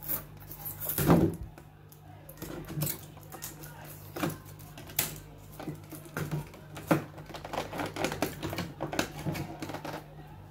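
Irregular clicks, knocks and rustles of a toy's cardboard-and-plastic packaging being handled and cut open, the loudest a sharp knock about a second in. A steady low hum runs underneath.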